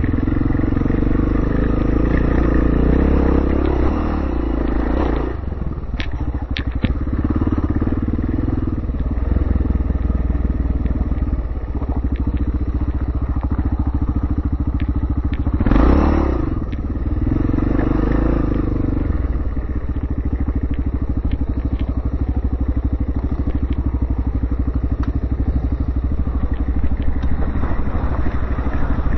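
Yamaha TT600R single-cylinder four-stroke dirt bike engine running under load on a dirt track, its revs dropping and picking up again several times as the rider throttles and shifts.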